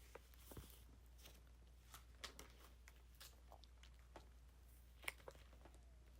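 Near silence: faint room tone with a low steady hum and scattered small soft clicks.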